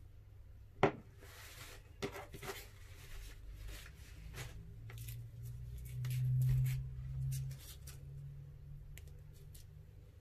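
Handling of slime-making tools on a tabletop: one sharp tap about a second in, a cluster of lighter clicks around two seconds, scattered faint ticks and rustles, and a low hum that swells for a moment in the middle.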